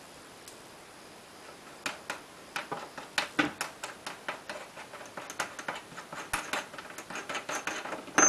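Quiet for about two seconds, then a run of irregular small metallic clicks and taps, a few a second, as the cartridge nut of a two-handle faucet is worked loose.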